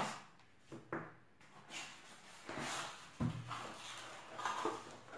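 A small cardboard box being opened: a knife slitting the packing tape, then the cardboard flaps pulled open and the plastic wrapping on the filament spool inside handled. The result is a run of knocks, scrapes and rustles, with sharp knocks at the start, about a second in and about three seconds in.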